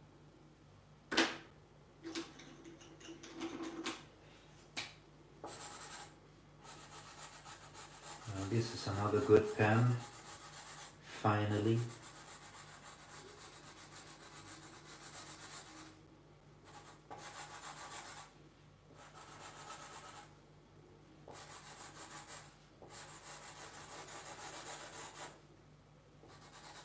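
Felt-tip marker rubbing across paper in short, repeated hissing strokes, filling in a large solid black area of an ink drawing. A brief low voice sounds twice near the middle, the loudest moments.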